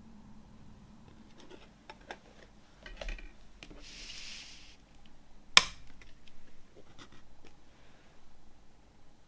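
Hands handling compact discs and a cardboard digipak: light taps and rubbing, a brief hiss about four seconds in, then a sharp click about five and a half seconds in as a CD is pried off its plastic tray hub.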